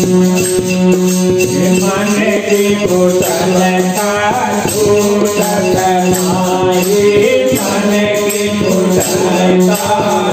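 Devotional shabad song: a singer's voice, coming in about two seconds in, over a steady held drone note and shaken hand percussion keeping the beat.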